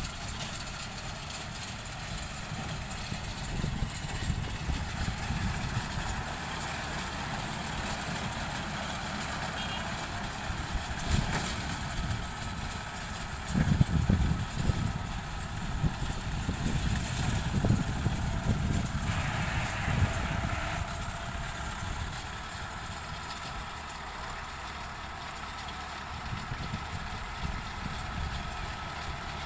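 Tractor engine running steadily as it drives a round straw baler, the sound getting louder and rougher for several seconds in the middle.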